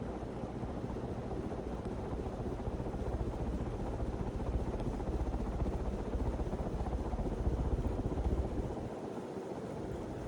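Large 48-inch fan running: a steady motor hum under a low, rumbling rush of air from the blades, with the rumble easing near the end.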